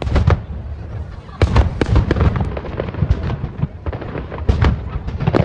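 Aerial firework shells bursting in quick succession, about two a second. Each is a sharp bang with a deep boom under it.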